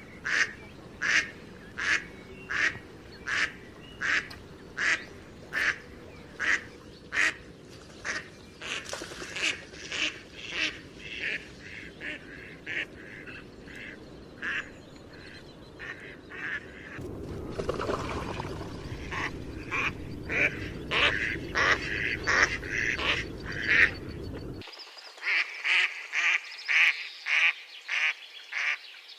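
Ducks quacking over and over, short calls about two a second, crowding closer together in the second half. A low rushing noise sits under the calls for a stretch in the second half.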